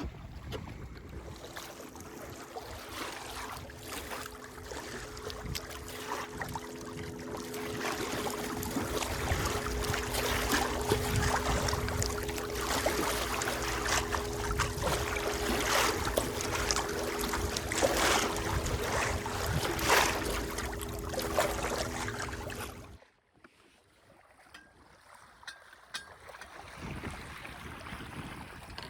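Wind on the microphone and water rushing along the hull of a small sailboat under way, over a steady low hum. The sound drops away suddenly near the end, leaving only faint water sounds.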